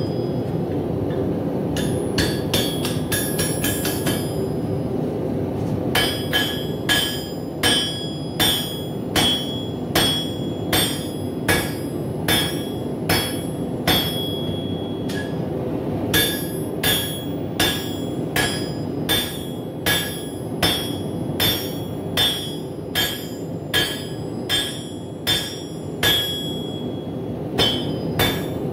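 Hand hammer striking hot coil-spring steel on an anvil while forging a knife blade: a quick flurry of light taps, then steady ringing blows a little over one a second with a short pause midway. A steady rushing noise, typical of a propane forge burner, runs underneath.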